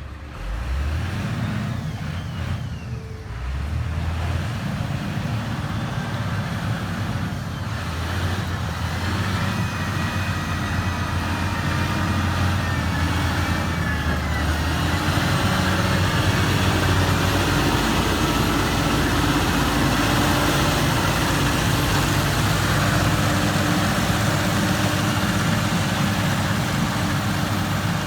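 Heavy diesel engine of construction machinery running, growing louder over the first half and then holding steady.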